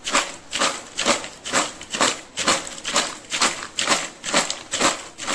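French fries being shaken in a red plastic container to coat them with spice powder: a rhythmic rattling swish of fries against the plastic, about two shakes a second.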